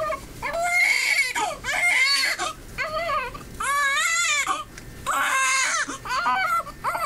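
Newborn baby crying: a run of short wails with wavering pitch and quick breaths between them.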